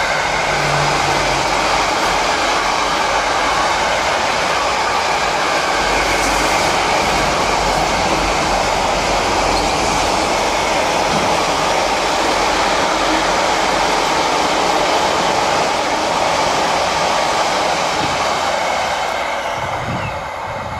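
Container freight train wagons rolling past on the rails: a loud, steady rush of wheels and running gear, fading near the end as the last wagons draw away.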